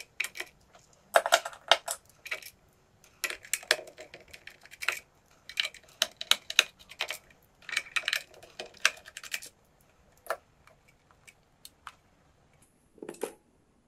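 Irregular clusters of light plastic clicks and taps from a digital multimeter's plastic case being handled while its back screws are taken out and set down, with a pause near the end.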